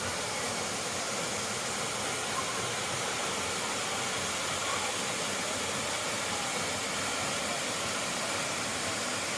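Waterfall: a steady, even rushing of falling water.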